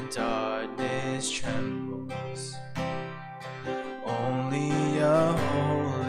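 A worship song played on a strummed acoustic guitar, with a voice singing over it.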